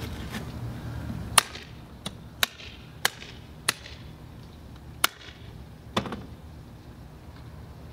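Wooden contact-printing frame being opened by hand: its fasteners give a series of about seven sharp clicks, spaced unevenly over several seconds, as the frame is undone to release the exposed cyanotype print.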